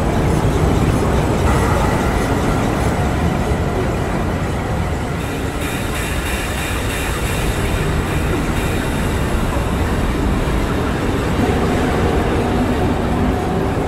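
Steady, loud rumbling mechanical noise with no pauses, like a train running, with faint high whining tones added between about five and eight seconds in.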